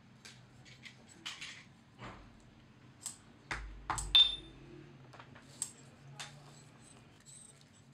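Hands handling and pressing leather pieces on a marble slab: scattered light taps, rubs and clicks. About four seconds in comes a low thump and a short metallic ping, the loudest sound.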